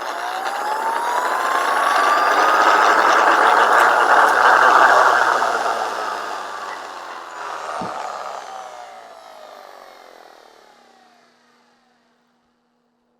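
Porter Cable random orbit sander motor running without its sanding pad, as a test after a power cord replacement: a whine that rises in pitch as it spins up over the first few seconds, then falls in pitch as it winds down to a stop, with a single knock about eight seconds in.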